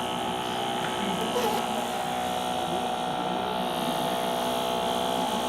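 Small electric fan motor of a home-made air cooler, running steadily with a constant hum and whine.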